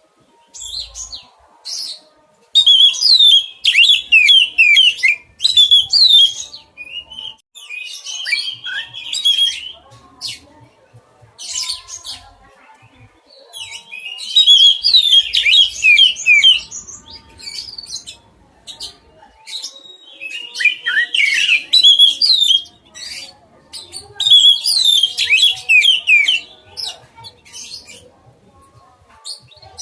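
Oriental magpie-robin (kacer) singing loudly in repeated phrases of quick, falling whistled notes, each phrase a few seconds long with short pauses between.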